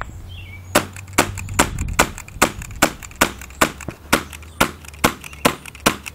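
CO2-powered HK USP airsoft pistol fired in rapid succession, about thirteen sharp, loud shots at a steady pace of two to three a second, starting about a second in.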